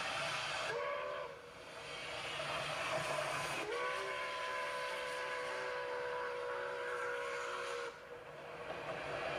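Milwaukee Road 261, a 4-8-4 steam locomotive, sounds its steam whistle as it passes. There is a short blast about a second in, then a long blast of about four seconds, each sliding up into pitch as it starts. A steady rush from the moving train runs underneath.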